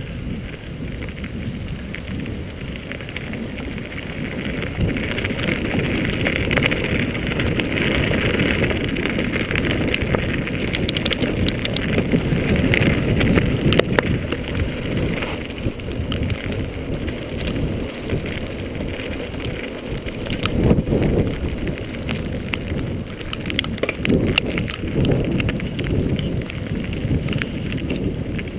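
Mountain bike descending fast on a dirt road: wind rushing over the microphone and tyres rolling on grit, with scattered rattles and knocks from the bike over bumps. It grows louder over the first several seconds.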